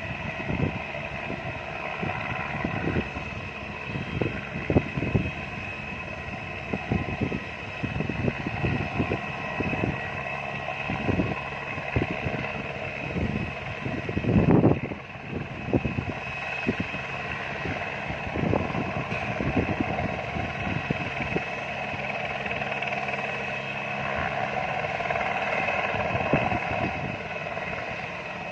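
Airbus AS355 twin-turbine helicopter running with a steady high turbine whine, while irregular gusts of wind thump on the microphone, the strongest about halfway through.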